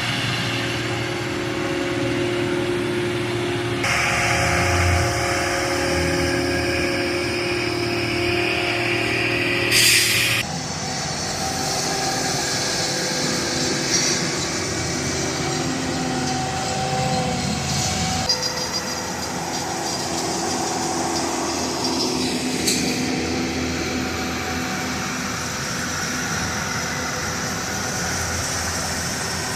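Railroad maintenance equipment with its engine running steadily. About ten seconds in there is a short, loud hiss that cuts off sharply, and a few sharp clicks follow later.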